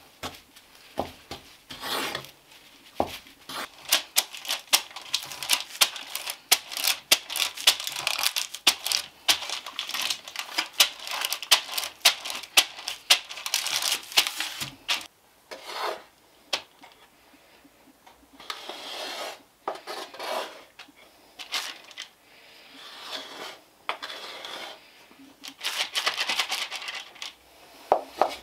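A wooden spatula scraping and tapping against a glazed earthenware bowl as it stirs thick cake dough, a dense run of sharp scrapes and clicks. About halfway through this gives way to softer rubbing strokes as fingers spread margarine around the inside of a metal springform pan.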